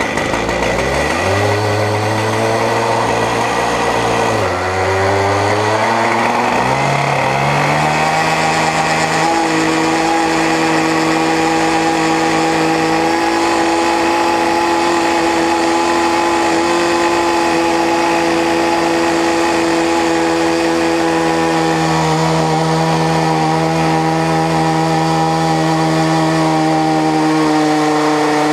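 Two big Stihl two-stroke chainsaws, an MS 880 and an 084, driving one long chainsaw-mill bar. They rev up in steps over the first eight seconds or so, then run steady at high speed, slabbing a beech log.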